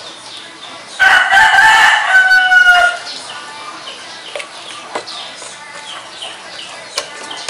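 A rooster crows once, about a second in, a loud call of about two seconds that drops slightly in pitch at its end. Faint chirping and a few light knocks go on behind it.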